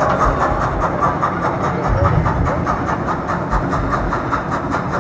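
A train sound effect played over the show's loudspeakers: the rhythmic clickety-clack of railway wheels over rail joints, several beats a second.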